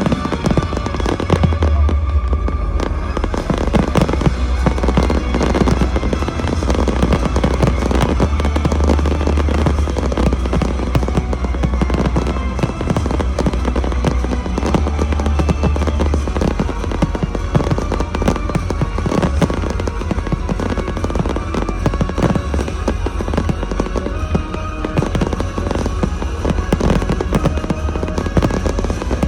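Fireworks display: a continuous volley of shells bursting, with bangs and crackling, over loud show music with a deep bass.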